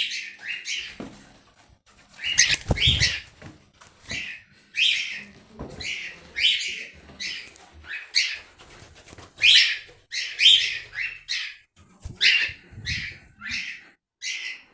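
Cockatiel giving loud, repeated contact calls, short shrill cries about one or two a second: a bird calling for a companion it has lost sight of. A low rustling thump comes about three seconds in and again near the end.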